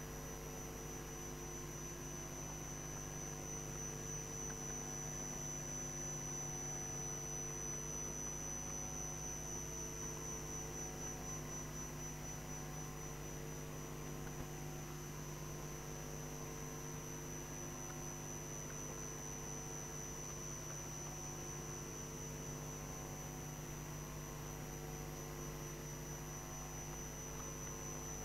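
Steady electrical hum with a thin high-pitched whine above it, unchanging throughout, with one faint tick about halfway through.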